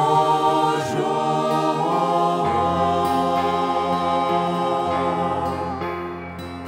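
Mixed vocal ensemble singing a Ukrainian Christmas song, holding long sustained notes in chord; a low bass note comes in about two and a half seconds in, and the sound eases off slightly near the end.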